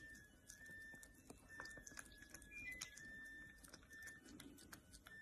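Near silence with faint, scattered small clicks and smacks of a small dog licking at a cup of dog ice cream.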